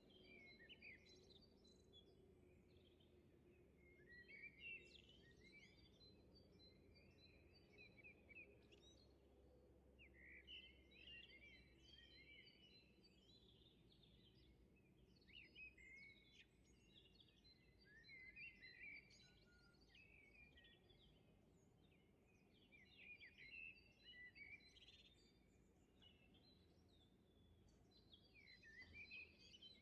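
Faint birdsong: small birds twittering in short clusters of quick chirps every few seconds, over a faint low hum.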